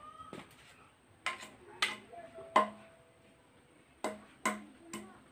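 Machete chopping into bamboo: a series of sharp strikes with a short ring after each, three close together, a pause, then three more.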